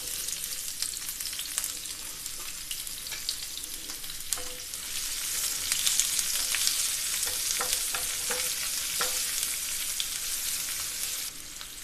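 Sliced onions hitting hot oil in a nonstick frying pan and sizzling steadily, stirred with a wooden spatula that gives short taps and scrapes against the pan. The sizzle grows louder about halfway through and falls away near the end.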